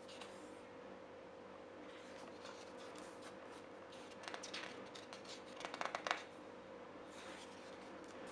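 Pages of a large hardcover photobook being turned by hand: soft paper rustling, with two short bursts of crackling paper about four and six seconds in, the second the louder. A faint steady hum runs underneath.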